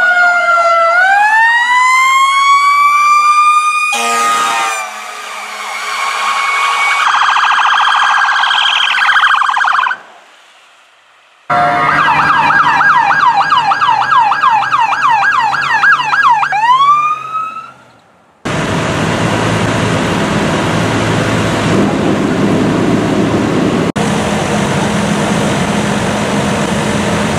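Emergency vehicle sirens: a fire engine's siren wailing up and down, a brief horn blast about four seconds in, then after a short break a fast yelp siren from a fire department van that winds down. In the last third, a steady engine drone from fire apparatus working at a house fire.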